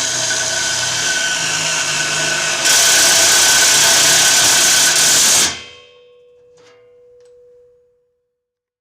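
Cordless impact driver running at full speed, getting louder and harsher about two and a half seconds in, then released about five and a half seconds in, leaving a faint fading tone as it winds down and a couple of small clicks.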